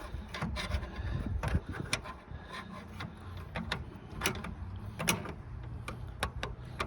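Irregular small metallic clicks and taps of hand tools and a small fitting being handled while fastening a bonnet release cable.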